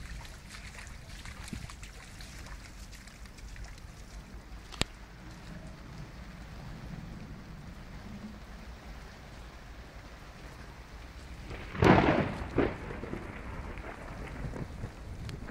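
Steady noise of rain and water in a flooded tent, with a low rumble throughout. A sharp click comes about five seconds in, and a loud double thump about twelve seconds in.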